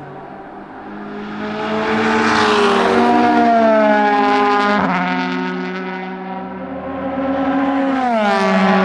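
Naturally aspirated 4.0-litre V8 of the Audi A4 DTM race car at full throttle, revs climbing as it nears and passes, with a sudden drop in pitch about five seconds in. The engine then swells again and its pitch drops sharply once more near the end.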